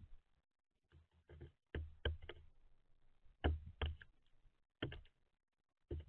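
House sparrows pecking and shuffling on a seed feeder tray close to the microphone, making about half a dozen irregular clicks and knocks.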